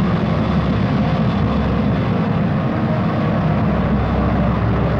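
Concorde's Olympus 593 jet engine running at high power with reheat lit on a test stand: a steady, deep roar.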